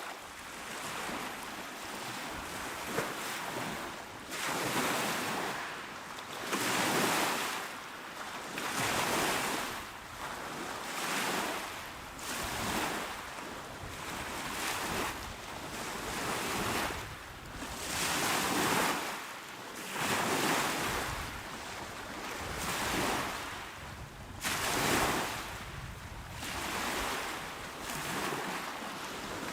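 Small, calm waves washing onto the shore, one after another about every two seconds, each swell of hiss rising and falling away.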